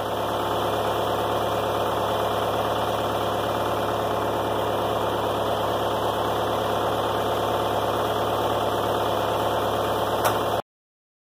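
John Deere 310B backhoe's engine idling steadily, with a single short click near the end. The sound cuts off suddenly just before the end.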